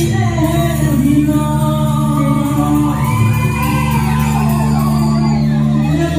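A live band playing amplified music, electric guitars over held low bass-guitar notes, with a voice singing and shouting over it.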